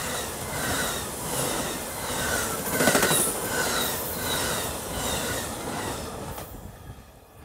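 Amtrak Superliner bilevel passenger cars rolling past at speed, their wheels rumbling and clacking on the rail, with short high wheel chirps repeating about every three-quarters of a second. The sound fades near the end as the last cars go by.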